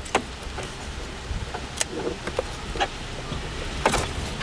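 Plastic wiring connectors and wire harness being handled at the back of a vehicle instrument cluster: scattered sharp clicks and rustles, the loudest click near the end.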